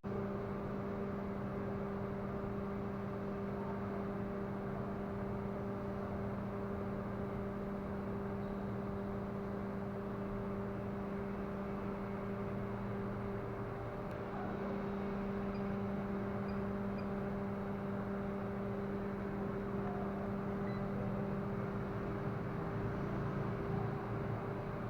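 A steady machine hum: a low tone with fainter higher tones above it, over a soft hiss. The low tone wavers briefly about halfway through.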